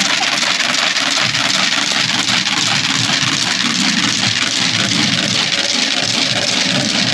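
A vehicle engine running steadily at low speed, with dense street noise around it.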